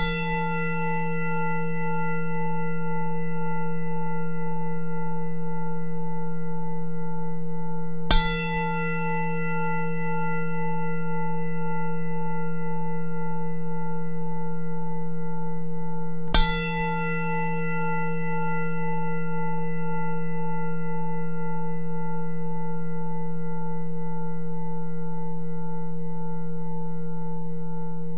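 Singing bowl struck three times, about eight seconds apart. Each strike rings on as a steady, slightly wavering hum of several tones and is still sounding when the next strike comes. It is the closing bell at the end of a guided relaxation.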